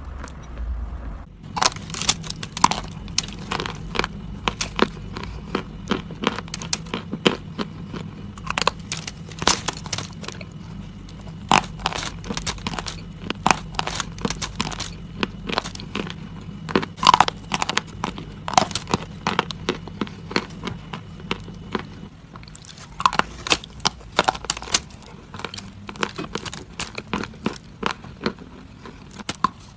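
Close, sharp crunching and crackling of something brittle, many crunches in quick clusters with brief pauses between them.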